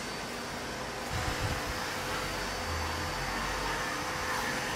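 Steady mechanical hum and whir, like a fan or air-conditioning unit running, with a faint steady tone in it and a few soft low thumps about a second in.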